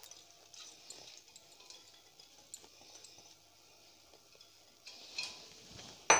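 Washed mixed arhar and moong dal sliding faintly from a glass bowl into an aluminium pressure cooker, with a few small taps of the bowl against the rim. Near the end, a single sharp clack as the glass bowl is set down on the granite counter.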